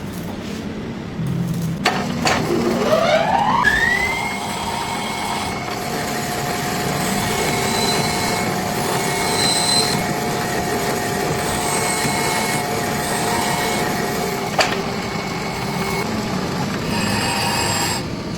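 An electric motor of a workshop machine spinning up, its whine rising steeply over about two seconds, then running steadily at speed with a sharp click a few seconds before it winds down near the end.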